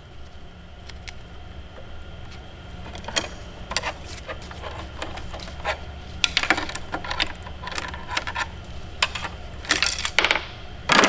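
Light metallic clinks and rattles of hand tools and loose metal engine parts being handled, a few scattered at first, then in quick clusters in the second half, over a low steady hum.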